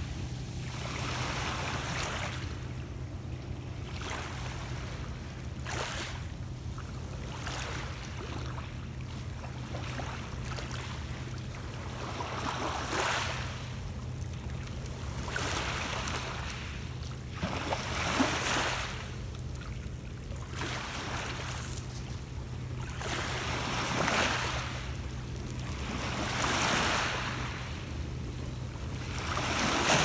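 Small lake waves lapping and washing over a pebble beach, with a surge every couple of seconds, over a steady low hum.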